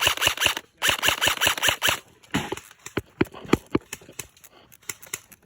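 Airsoft rifle firing on full auto: two rapid bursts of about ten shots a second, a short one and then a longer one of about a second, followed by scattered single, quieter shots.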